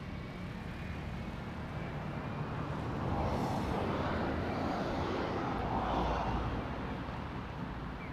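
A motor vehicle passing on the street: a rumbling noise that swells about three seconds in and fades near the end, over steady traffic background.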